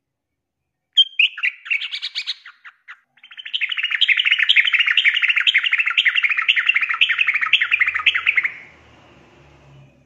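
Female yellow-vented bulbul calling for a male. A few sharp chirps come about a second in, then a long, rapid chattering run of repeated notes at about two phrases a second, which stops near the end.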